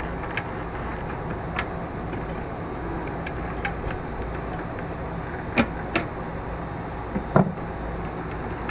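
A few light clicks and taps from hooking the return spring onto a push mower's flywheel-brake and stop-cable linkage, over a steady low hum. The sharpest clicks come about two-thirds in and again near the end.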